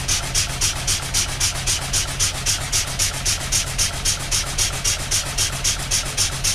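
Small Robey horizontal steam engine running steadily, its exhaust and open drain cocks puffing steam in an even beat of about four to five puffs a second. It is driving the water pump that refills the boiler.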